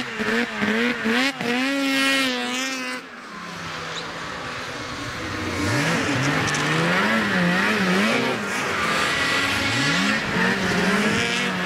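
Racing snowmobile engines revving hard, their pitch rising and falling over a snow crest. One sled revs through the first three seconds, it eases off, and a second sled's engine climbs in from about six seconds in and keeps revving up and down.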